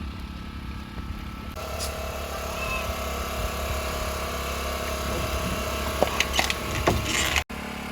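Small boat engine running steadily, with a few sharp knocks near the end.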